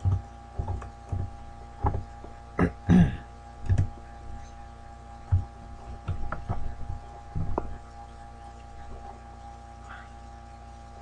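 Steady electrical hum, with a series of short sharp mouse clicks and key taps over the first eight seconds, then only the hum.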